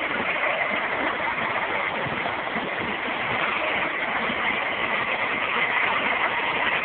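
Hornby OO-gauge live-steam Flying Scotsman model running with a long train of coaches: a steady hiss and the running noise of the model's wheels and coaches on the track.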